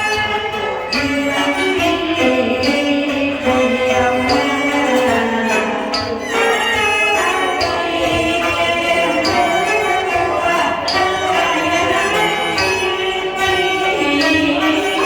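Teochew opera instrumental ensemble playing, led by bowed Chinese fiddles with long, sliding melodic lines, over regular sharp percussion strokes about once a second.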